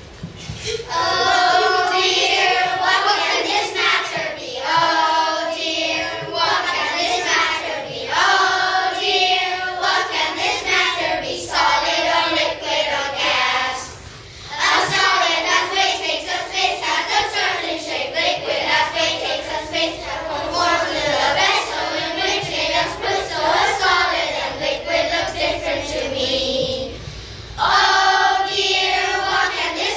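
A group of children singing together in unison. The singing starts about a second in and briefly pauses about halfway through before carrying on.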